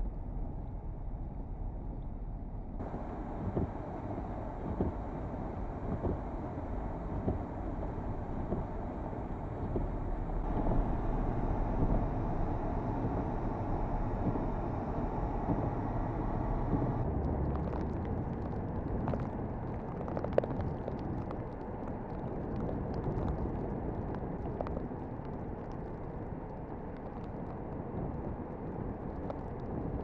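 Steady rumble of a car driving on a snow-covered road through a blizzard, with wind. A little past halfway it gives way to gusty blizzard wind on the microphone, with scattered light ticks.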